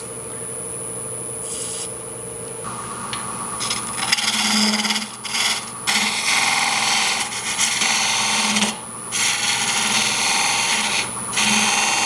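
Wood lathe running steadily, then from about four seconds in a turning tool cutting into a spinning blank of wet locust to form a spigot for a scroll chuck: a loud rough cutting noise in several passes with short breaks between them.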